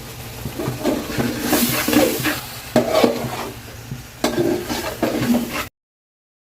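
A spoon stirring and scraping food frying in a pot, with sizzling under the strokes. The sound cuts off suddenly about a second before the end, leaving total silence.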